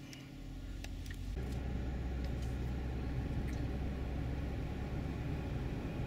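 Car interior: a low engine and road rumble grows louder over the first second and a half, then holds steady.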